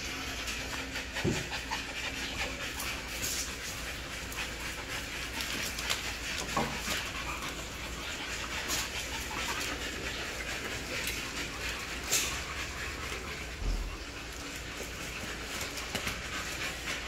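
A group of American bully puppies panting and moving about, with scattered light clicks and rustles.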